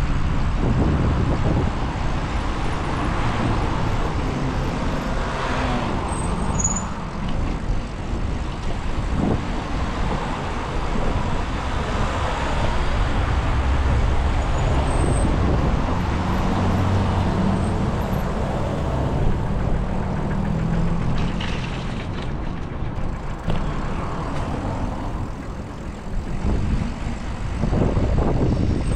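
Street traffic noise: cars and trucks passing on a busy road, a continuous rumble that swells and eases as vehicles go by.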